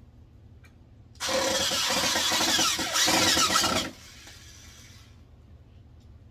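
Corded electric drill running into the wooden frame of an enclosure for about two and a half seconds, with a brief dip near the middle, then stopping and faintly winding down.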